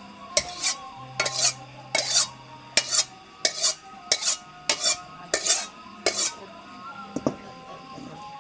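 A kitchen utensil clattering against cookware in quick strokes, roughly two a second, that stop about six and a half seconds in, followed by a single knock.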